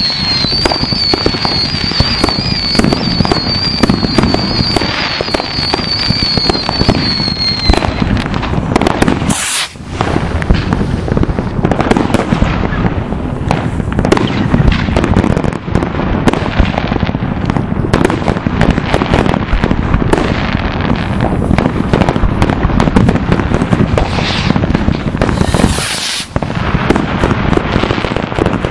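Dense fireworks: a constant barrage of bangs and crackling from many rockets and firecrackers going off at once. A high, wavering whistle sounds over it for the first eight seconds or so.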